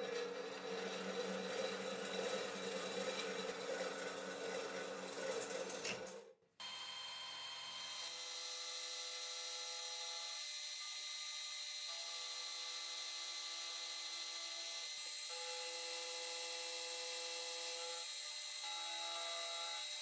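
Brass being machined. A rough, uneven cutting noise for about six seconds breaks off abruptly. From about eight seconds a milling machine's end mill cuts a brass disc with a steady whine of several held tones and a bright hiss.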